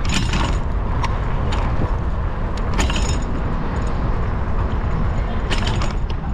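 Bicycle rolling over city pavement: a steady low rumble of wind and road noise, with the front wire basket and frame rattling in short clicks a few times over bumps.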